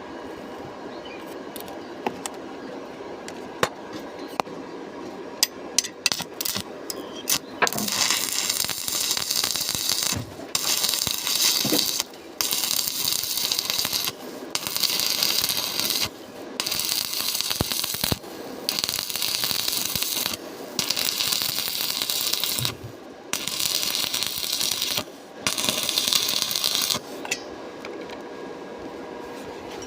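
Stick-welding arc crackling and sizzling on rusty steel plate, in runs of about two seconds broken by short pauses. For the first several seconds there are only scattered sharp ticks over a low background hum, before the arc burns steadily.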